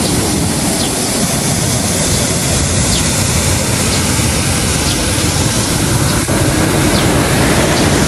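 Waterfall pouring into a pool: a loud, steady rush of falling water that starts abruptly.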